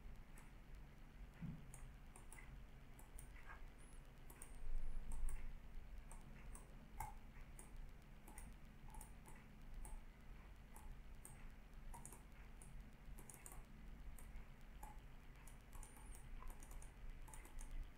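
Faint computer-keyboard typing and clicks, irregular and scattered, over a low steady electrical hum, with a brief low rumble about five seconds in.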